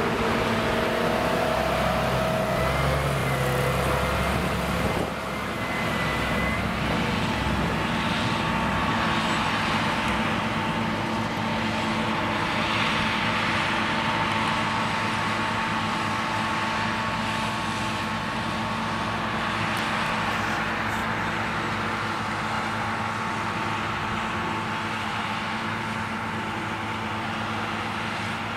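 Claas Lexion 560 combine harvester running while threshing soybeans: a steady machine drone with a high whine running through it. The sound drops a little about five seconds in.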